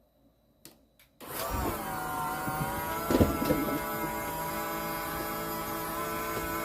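Two sharp clicks, then the travel trailer's slide-out motors start and run steadily with a whine, pitch dipping briefly before it settles, the slide now powered through a winch controller in place of the failed slide controller. A knock about three seconds in.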